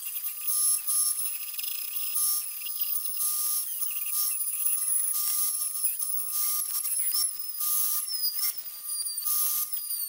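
Dremel rotary tool with a chainsaw-sharpening grinding stone running at high speed with a high whine that wavers in pitch as it is pressed into the metal neck of a Zippo handwarmer, grinding it wider in repeated bursts of gritty hiss.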